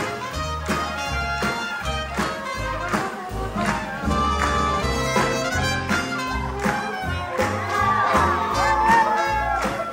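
Live swing band playing, with a steady beat and a bass note on each beat under the melody instruments.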